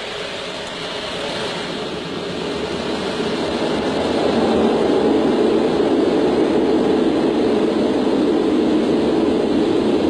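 Concorde's four Olympus 593 turbojets at full takeoff power with reheat, heard from inside the flight deck on the takeoff roll: a loud roar mixed with runway rumble, building over the first four seconds, then steady.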